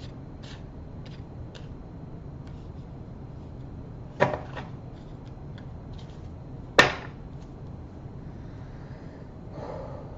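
Tarot cards being handled: a few light card clicks, then two sharp slaps of cards laid down on a table, about two and a half seconds apart.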